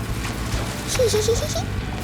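Cartoon soundtrack: a low background music bed, with a short wavering, bleat-like vocal sound about a second in.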